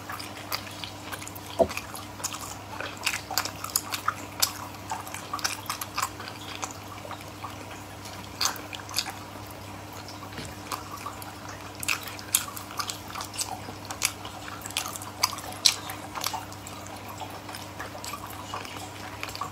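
Close-miked eating of sea snails: irregular wet clicks, smacks and chewing as the meat is pulled from the shells with the fingers and eaten.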